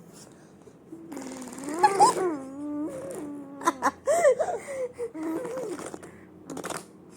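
A baby squealing and babbling with laughter, in a run of high cries that rise and fall from about a second in, with a few sharp clicks among them.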